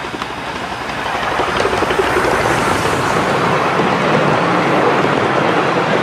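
Miniature 'Maxi-Lucky-Seven' 2-4-2 steam locomotive passing close by, then its passenger carriages rolling past on the track. The sound swells about a second in and stays loud.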